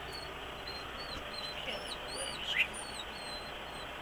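A bird chirping over and over in short, quick, high notes, with a few louder rising-and-falling calls in the middle and one sharper falling call about two and a half seconds in, over a steady background hum.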